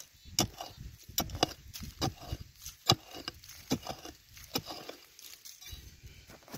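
A digging tool chopping repeatedly into dry, stony soil, about a dozen sharp strikes a little under a second apart, while a hole is dug out to reach a metal-detector target.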